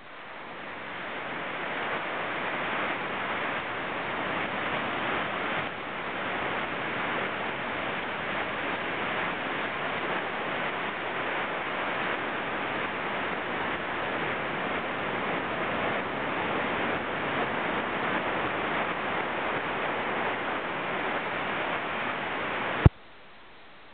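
Ocean surf breaking and washing up over the sand: a steady rush of noise that fades in over the first couple of seconds, then cuts off abruptly with a click near the end.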